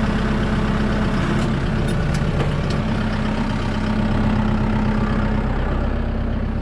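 Tractor engine idling steadily, with a few light clicks about two seconds in.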